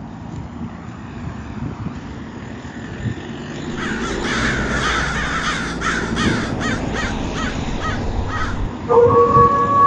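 Crow cawing repeatedly, a stock sound effect, over a low background rumble. Near the end a long held tone starts.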